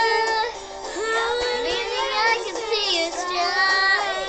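Two young girls singing a pop song together, their voices holding and bending long notes, with a brief break about half a second in.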